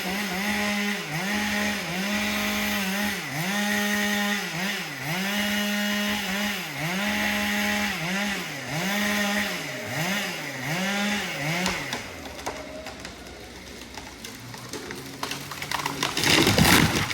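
Chainsaw running at high revs, its pitch dipping and recovering about once a second, then dying away about twelve seconds in. Near the end comes a loud splintering crack of wood.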